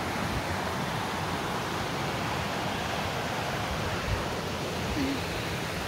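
Steady rushing background noise without pitch, spread evenly from low to high, with a faint soft knock about four seconds in.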